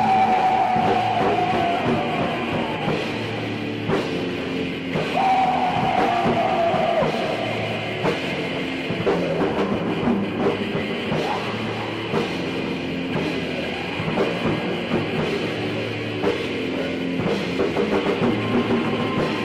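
Raw black metal song with drums, recorded with a muffled old-tape sound that has little treble. A held high note sinks slowly twice, once at the start and again about five seconds in.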